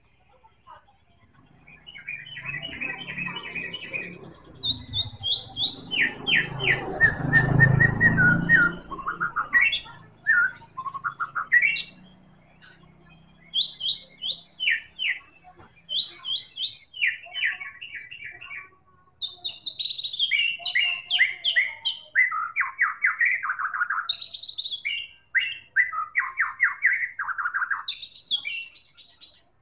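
White-rumped shama singing: a long run of varied phrases of quick repeated whistles and trills with short pauses between them. A low rumble swells and fades under the song during the first third.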